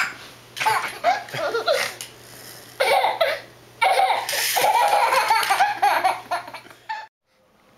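A baby laughing in repeated bursts of giggles, cutting off suddenly near the end.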